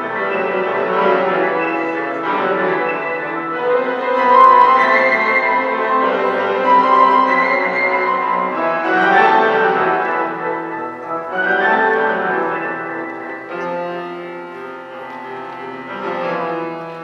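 A small ensemble of young Suzuki students playing a lively classical-style piece, with piano to the fore and held melodic notes over it.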